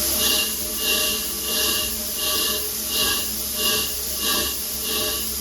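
Chambersburg compressed-air power hammer cycling, a hiss of air with each stroke at a little under two a second over a steady hum.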